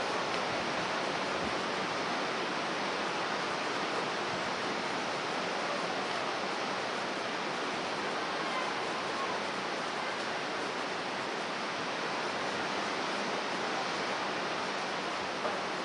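Heavy storm surf breaking along a rocky shore, heard as a steady, even rush without separate crashes.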